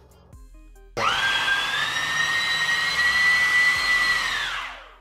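Electric ducted fan with two counter-rotating propellers driven by two 1700 KV brushless motors on a 4S battery, spinning up suddenly about a second in to a loud rushing whine that climbs slightly in pitch, then winding down and stopping near the end.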